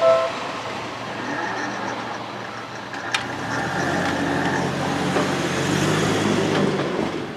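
Level-crossing warning bell cutting off just after the start, then road vehicles running over the crossing with a low engine rumble that grows from about four seconds in. One sharp click about three seconds in.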